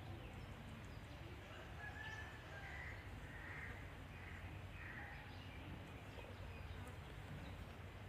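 Quiet background hum with a series of about six short, faint bird calls between about two and five seconds in.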